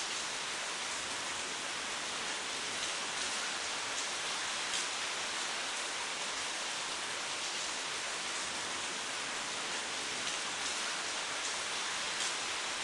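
Steady rain sound effect: an even hiss with a few faint scattered drop ticks.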